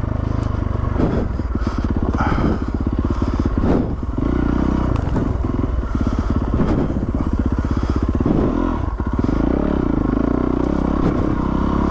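Yamaha WR450 single-cylinder four-stroke dirt bike engine running while the bike is ridden, with occasional knocks and clatter from the bike over rough ground.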